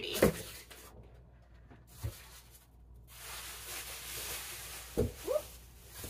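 Styrofoam packing insert being pulled out of a cardboard box: a couple of knocks, then a few seconds of scraping and rustling as the foam slides against the cardboard, and a thump with a short squeak near the end as it is set down.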